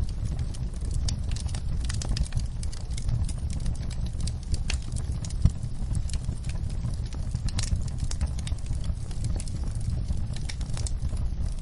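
Wood fire crackling, with many sharp irregular pops and snaps over a steady low rumble.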